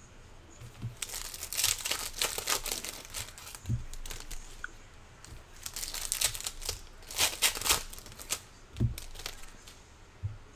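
Foil wrappers of 2024 Bowman baseball card packs being torn open and crinkled by hand, in two bouts of crackling, with a couple of soft low thumps between them.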